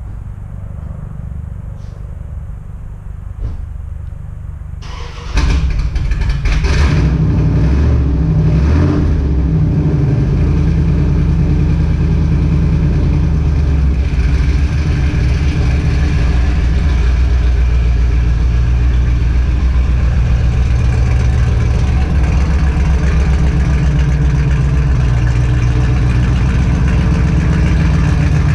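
Dodge Dakota R/T's 410 stroker V8 cold-starting: it catches suddenly about five seconds in, rises and falls in pitch a few times, then settles into a loud, steady idle.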